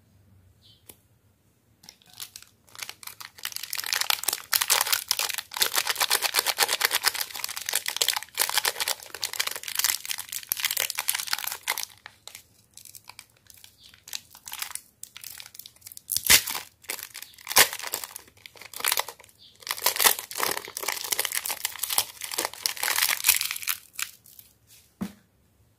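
Shiny plastic wrapper of a mini Beng-Beng chocolate wafer bar crinkling and tearing as it is opened by hand. The crackling comes in two long spells, with a few separate crinkles between them.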